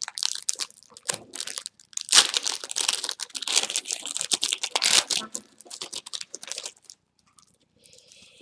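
Foil wrapper of a trading-card booster pack being torn open and crinkled: dense crackling for about five seconds, then fainter rustling that dies away near the end.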